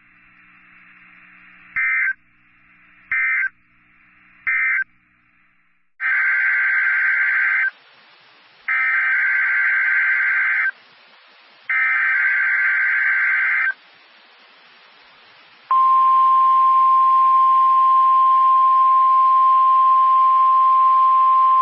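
NOAA Weather Radio SAME digital data bursts: three short end-of-message bursts, then three longer header bursts announcing the next alert. Then the steady 1050 Hz weather radio alert tone comes on about 16 seconds in and holds.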